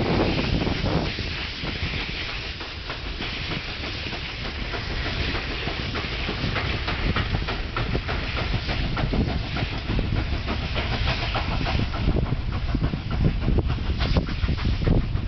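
Freight train hauled by SY-class Mikado steam locomotives passing under steam, with a run of short clicks from the wagons' wheels on the rails. Heavy wind noise buffets the microphone throughout.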